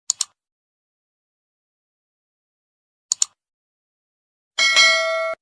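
Two quick double clicks about three seconds apart in otherwise dead silence, then near the end a bright bell ding with several ringing tones, struck twice in quick succession. These are edited-in sound effects.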